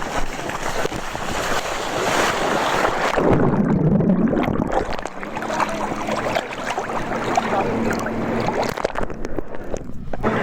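Water sloshing and splashing around a phone in a waterproof bag as it is dunked in the water, a test of whether the bag keeps the water out. The sound turns muffled twice, about three seconds in and again near the end, while the phone is under.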